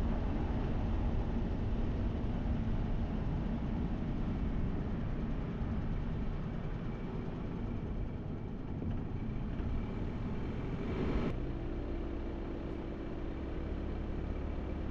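Car driving along with steady road and engine noise. About eleven seconds in the sound changes abruptly, and a steady low hum comes in.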